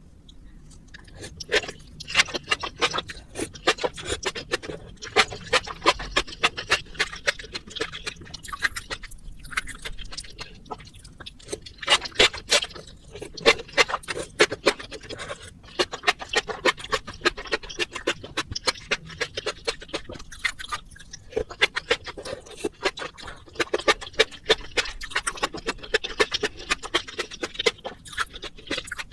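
Close-miked eating of spicy instant noodles: a rapid, continuous run of wet chewing and mouth clicks, broken by a few short pauses.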